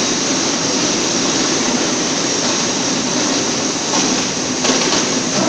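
Electric gearmotor drive of a welding turning roll running steadily under power, giving a loud, even mechanical noise.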